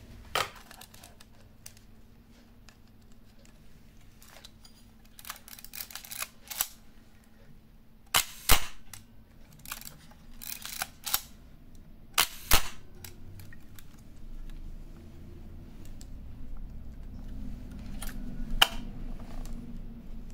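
Mechanical clicks and clacks from handling a Kowaflex Model E camera as the lens is turned off and remounted and the back cover is opened. Scattered sharp clicks, the two loudest snaps about eight and twelve seconds in.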